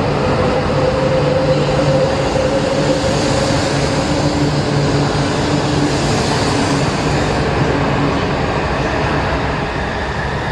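16-car E4 series Max double-deck Shinkansen departing and accelerating past the platform: a steady rush of wheels and air with a slowly rising whine. The sound eases off near the end as the last car goes by.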